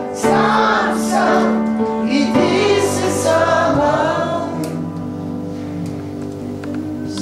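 Music: a group of men and women singing a song together, the sung lines giving way to long held notes in the second half.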